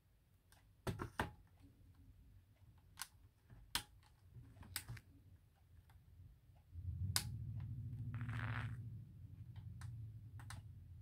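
Scattered small plastic clicks and taps as a portable TV is handled and its power plug pushed into the side. About seven seconds in, a steady low hum starts and runs on.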